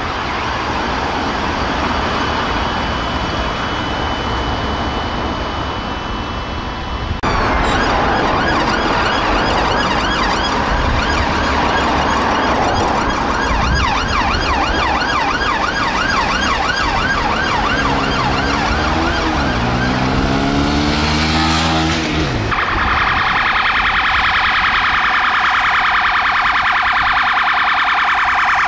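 UK police vehicle sirens, one vehicle after another, loud. A few seconds in, the sound changes to a faster up-and-down yelp with low sliding tones near the middle. Near the end it becomes a very rapid warble.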